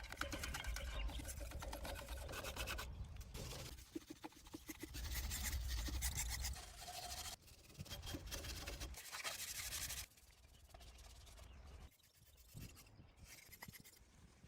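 Rasping rubbing and scraping in quick repeated strokes, like sanding or scrubbing a surface by hand. It comes in several short stretches that start and stop abruptly, and is fainter after about ten seconds.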